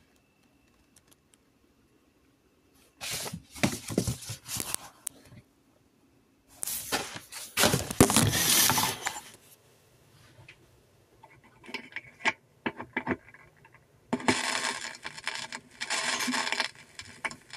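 Rustling, scraping handling noise in irregular bursts, with a few sharp clicks between them, as the recording phone is handled and moved about.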